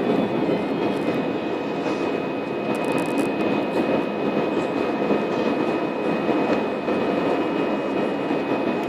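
Steady airliner cabin noise: the jet engines and the airflow outside make an even, unbroken rush, with a thin, steady high whine over it.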